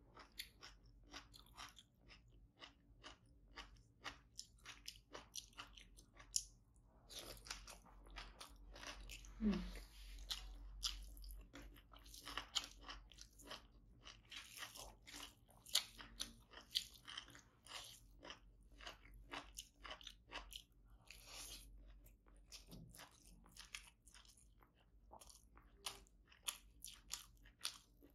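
Close-miked eating sounds: a person chewing and biting mouthfuls of food, a steady run of short crunches and wet mouth clicks.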